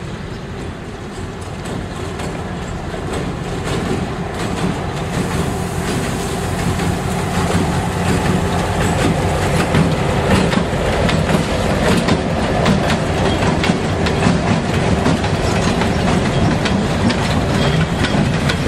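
Freight train of boxcars and covered hoppers rolling past close by, the steel wheels clacking steadily over the rail joints. It grows louder over the first half and then holds steady.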